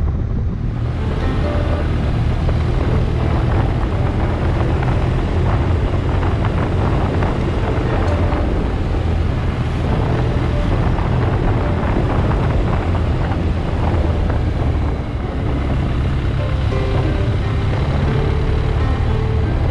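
Motorcycle engine running steadily at cruising speed, with wind rushing over the bike-mounted camera's microphone.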